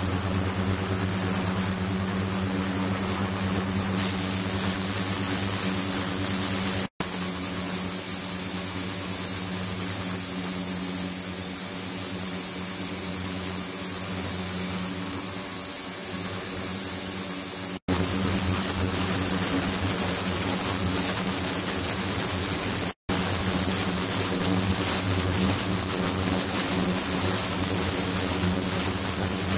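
Ultrasonic water-tank apparatus running: a steady low hum with a thin, high whine above it. The sound cuts out briefly three times.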